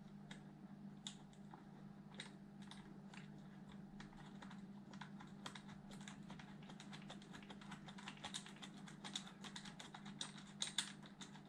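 Faint, irregular light clicks and taps of small metal screws, washers and a hand tool being handled during assembly, busier near the end.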